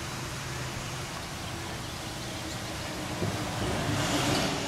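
Steady outdoor background hum and hiss, like distant traffic, with a brief louder rush of noise about four seconds in.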